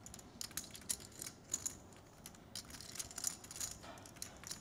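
Poker chips clicking together in quick, irregular, faint clicks as a player handles and riffles his stack at the table.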